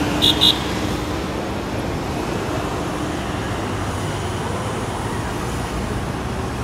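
Steady city road traffic: cars, buses and trucks running past on a multi-lane road, with a low engine hum in the first few seconds. Two short high beeps sound just after the start.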